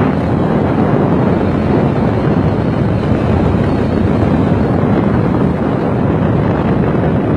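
Loud, steady wind rush buffeting the microphone over the road and engine noise of vehicles moving at highway speed.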